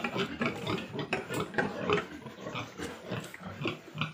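Pigs grunting in many quick short calls, a farrowing sow and her newborn piglets.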